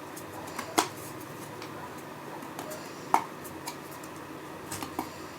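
Light clicks and taps of thin 2.5 mm MDF birdhouse panels being handled and pushed together at their slotted joints. The two sharpest knocks come about a second in and about three seconds in, with a few softer taps near the end.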